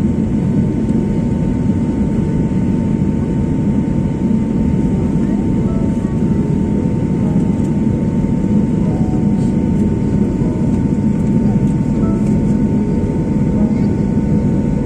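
Jet airliner cabin noise in flight: the steady, loud rushing drone of the turbofan engines and airflow, with a thin steady whine above it.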